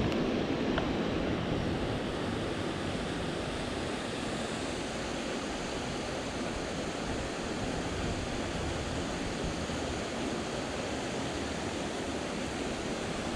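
Steady rushing noise of wind and creek water flowing over a spillway, with no change throughout.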